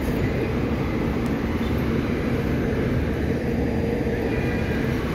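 Steady low rumble of city traffic and elevated-railway noise at an open-air subway platform, with no sudden sounds.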